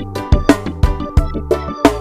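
Instrumental reggae music with a steady drum beat and no singing.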